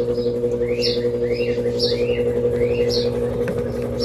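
A Brastemp Double Wash BWD15 washing machine runs its intermediate spin with a steady motor hum. Over it a small bird chirps repeatedly, about two short chirps a second.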